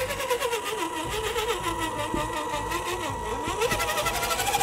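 Electric motor and drivetrain of a Reely Freemen 1:10 RC crawler whining as it drives through a muddy puddle and out onto mud, the pitch rising and falling with the throttle.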